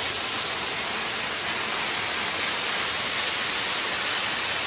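Small waterfall cascading down a rock face into a shallow pool: a steady, even rush of falling water.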